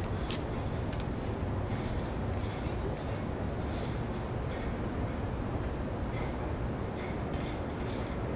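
Crickets trilling: one continuous, high-pitched, finely pulsing trill over a steady low background rumble.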